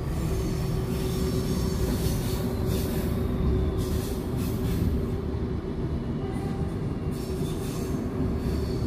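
Railway passenger coach rolling over the track, heard from inside the coach: a steady low rumble with a faint constant hum. The wheels give a faint high squeal and hiss at times, about two seconds in and again near the end.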